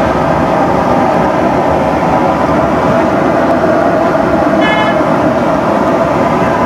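Steady, loud traffic and street noise with a short vehicle horn toot a little past two-thirds of the way through.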